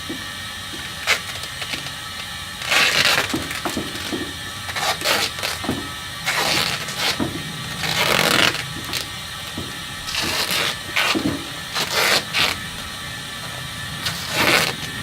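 Duct tape being pulled off the roll in a series of short ripping pulls, one every second or two, as it is wound tightly around the packer.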